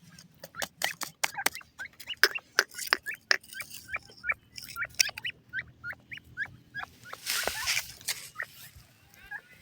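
Game bird chicks peeping, many short hooked high peeps in quick succession, mixed with sharp clicks and a brief burst of noise about three quarters of the way through.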